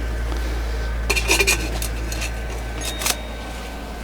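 Metal wood-stove chimney pipe sections being handled and fitted together: clinks and scrapes a second in, then a single ringing metallic clink about three seconds in. A steady low wind rumble on the microphone runs underneath.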